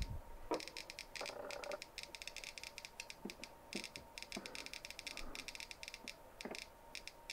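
Rapid, irregular clicking from a CD V-700 civil defense Geiger counter through a small piezoelectric speaker: its probe is held at the check source, and each click is a detected particle from that radioactive pellet. A few soft handling knocks come in the first two seconds.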